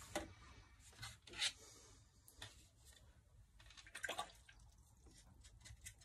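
Light clicks and knocks of a glass ink bottle and glass dip pen being handled and set down on a tabletop: a few separate taps, the loudest about a second and a half in and a short cluster around four seconds.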